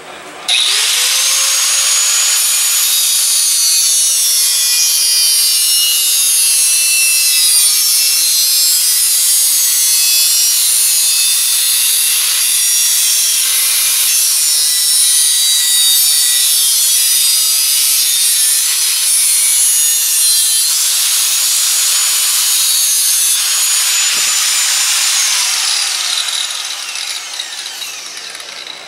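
Angle grinder with a cutting disc slicing through a steel bracket clamped in a vise. The motor starts abruptly and runs steadily under load, with a high grinding hiss over its whine, for over twenty seconds, then winds down near the end.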